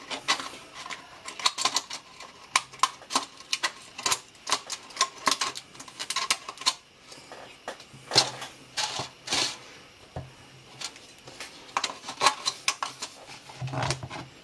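Scissors snipping through the rim of a thin plastic cup, a rapid, irregular series of sharp clicks, with a few longer scraping crackles of plastic about two-thirds of the way in. The crooked cut edge is being trimmed straight.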